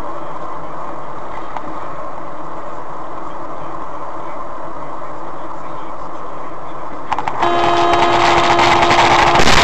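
Steady road and engine noise from a moving vehicle, then about seven seconds in a loud horn blast starts and is held as one long note.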